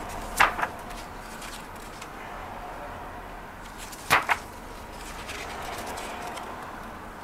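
Pages of a photobook being turned by hand, each turn a quick double flap of paper, once near the start and again about four seconds in, over a steady low hiss.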